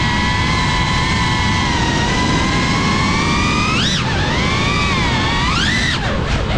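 FPV quadcopter's brushless motors and propellers whining at a steady pitch, then rising sharply and dropping back twice in the second half as the throttle is punched and let off, over a low rush of air.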